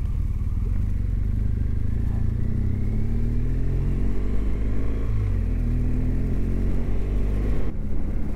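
BMW GS motorcycle engine under way, its note climbing as the bike accelerates, dipping once about halfway, then climbing again.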